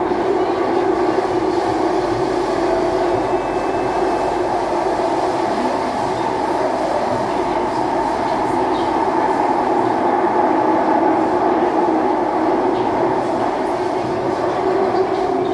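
Cabin noise inside an SMRT C151A electric metro train running between stations: a steady rumble of wheels on the rails and running gear.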